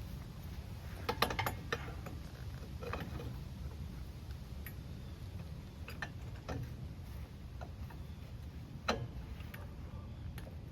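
Irregular light metallic clicks and knocks as parts are adjusted under the car, with a cluster about a second in and scattered single clicks after, over a steady low hum.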